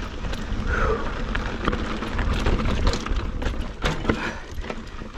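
Mountain bike rolling fast over rocky desert singletrack: tyres crunching on dirt and stone, with frequent sharp rattling knocks from the bike as it hits rocks, and wind buffeting the camera microphone. A brief falling squeak sounds about a second in.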